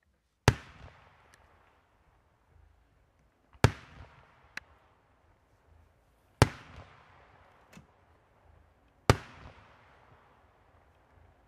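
Aerial firework shells bursting one at a time, four loud sharp bangs about three seconds apart, each with a long echoing tail and a fainter pop after most of them. Faint small crackles near the end.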